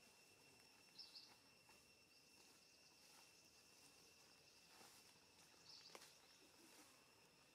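Near silence: a faint, steady insect drone at two high pitches, with a couple of faint brief chirps and small clicks about a second in and again near six seconds.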